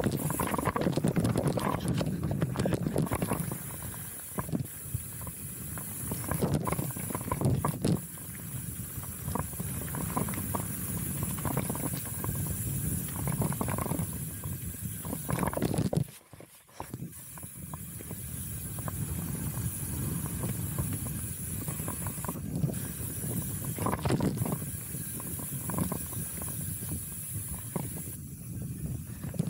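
Chromag Rootdown steel hardtail mountain bike descending a dirt singletrack: a steady rushing hiss of tyres and wind, with frequent knocks and rattles from the bike over bumps. The noise drops away sharply for about a second just past halfway.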